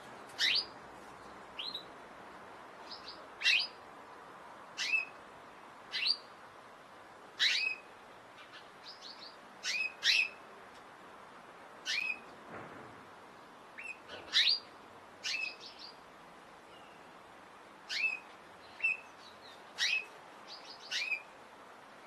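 Domestic canary calling: short, sharp chirps, each a quick downward sweep, repeated about once a second with a short pause midway, over a faint steady hiss.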